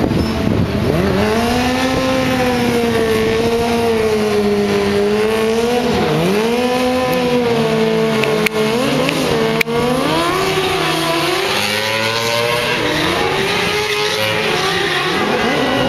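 Motorcycle engine held at high revs, loud, its pitch rising and falling every second or two as the rider works the throttle during a smoky burnout with the rear tyre spinning.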